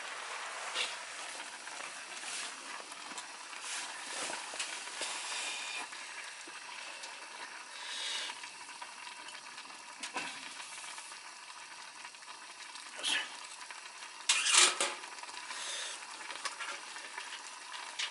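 A pot of offal miso stew sizzling and bubbling, with scattered clicks and clinks of utensils. There is a louder short clatter near the end.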